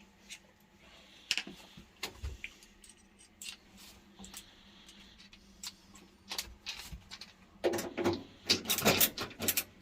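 Small metal tools and parts clicking and knocking as they are handled, scattered at first, then a dense, louder jangling clatter in the last two seconds.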